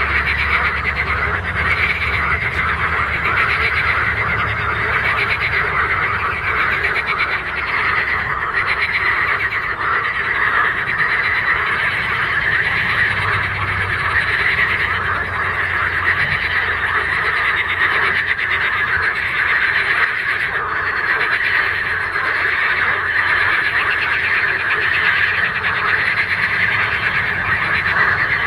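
A dense, continuous chorus of many frogs calling together from the pond, loud and unbroken, a rapid rattling mass of croaks.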